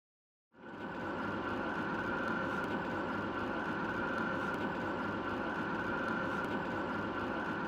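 Wheeled armoured vehicle running steadily, an even engine noise with a constant high whine, starting about half a second in.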